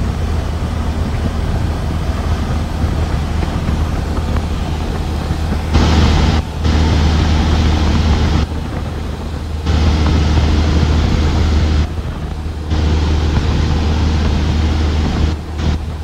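Cabin noise of a single-engine, high-wing light aircraft in flight: the piston engine and propeller drone steadily and loudly. Over it, a broad rushing noise cuts in and out abruptly several times.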